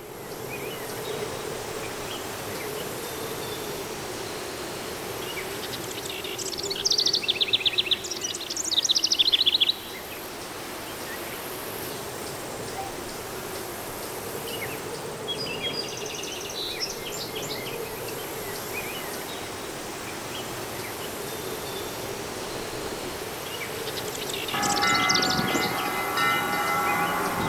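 Cowbells on cattle being driven down from the alpine pastures, clanging in rapid jangling bursts: about seven seconds in for three seconds, again around fifteen seconds in, and near the end. Between the bursts there is a steady background din. Near the end, several steady ringing tones come in with the clanging.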